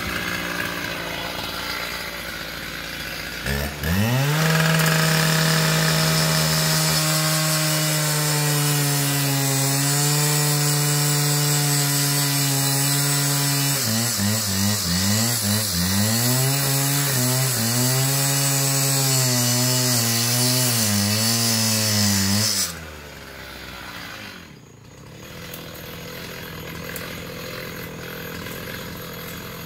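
Gas-powered handheld cut-off saw with an abrasive wheel. It runs low, revs sharply to full speed about three and a half seconds in, and holds high and steady. Midway its pitch starts wavering up and down as the wheel cuts through the metal chain-link fence, then it drops back to idle near the end.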